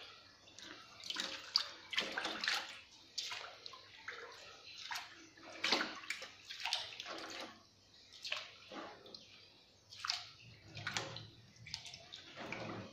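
Hands sloshing, rubbing and squeezing steamed glutinous rice in a pot of water, rinsing the sticky starch off the grains. Irregular splashes and swishes, about one or two a second.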